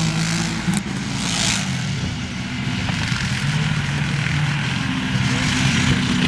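ATV engines running and revving as the quads drive and slide through snow, their pitch rising and falling, over a steady hiss. There is a single sharp click about a second in.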